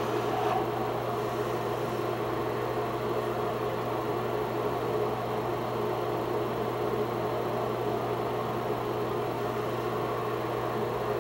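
A steady low hum with an even rushing noise over it, like a machine or fan running.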